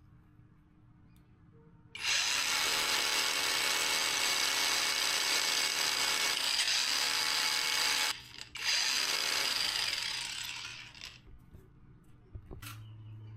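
A power tool running with a steady high whine, starting suddenly, cutting out for half a second, then running again briefly before winding down.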